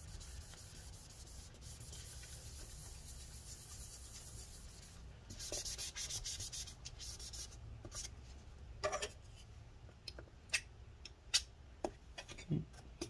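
A paper towel soaked in rubbing alcohol being rubbed over old battery adhesive residue on the metal inside of a laptop case. The rubbing is faint at first, grows louder in strokes about five seconds in, then gives way to scattered short scrapes and taps.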